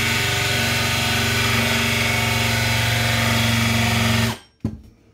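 Cordless drill spinning a bi-metal hole saw in reverse against a wood panel at high speed, the teeth rubbing rather than cutting as they wear a starting notch at the edge of an existing hole. It runs steadily, then stops suddenly about four seconds in.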